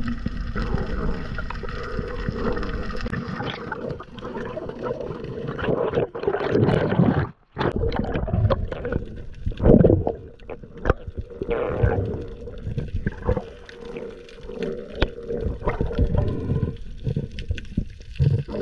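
Muffled underwater sound picked up through a camera housing: a low water rush with bubbling and a faint steady hum, broken by many short knocks and clatters.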